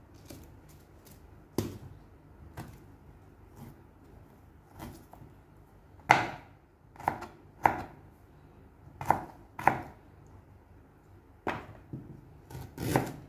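Kitchen knife slicing a ginger root on a plastic cutting board: a dozen or so sharp, irregularly spaced knocks of the blade striking the board, loudest around the middle.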